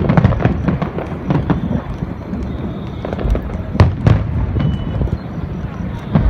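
Fireworks display going off: a dense run of bangs and crackling bursts, with one sharper bang about four seconds in.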